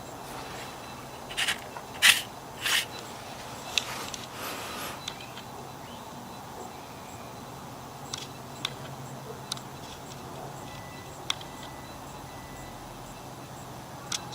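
Handling sounds from the microwaved plastic-and-metal watch being picked up and turned over: three loud short scrapes a couple of seconds in, a soft rustle, then scattered light clicks and taps.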